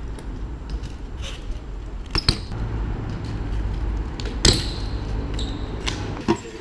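BMX bike on paving: a steady low rumble of tyres and wind on the microphone, a couple of quick knocks about two seconds in, and a loud clattering landing impact about four and a half seconds in.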